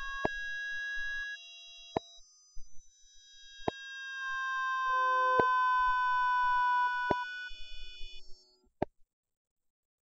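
Synthesized siren tone from an LMMS Triple Oscillator patch: a chord of steady, pure electronic tones that swells and fades and drifts slowly down in pitch. A sharp click comes about every 1.7 seconds where the looping note restarts; the loop does not yet run seamlessly.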